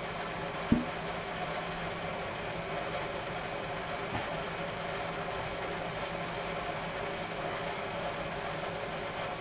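A plastic water-filter cartridge knocking once, sharply, against its plastic filter housing about a second in, with a faint tick later as the housing is handled. Under both is a steady low background hum.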